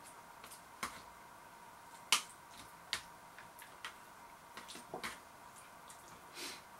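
Metal fork clinking and scraping against a bowl as food is picked up: a series of sharp, irregular clicks, the loudest about two seconds in.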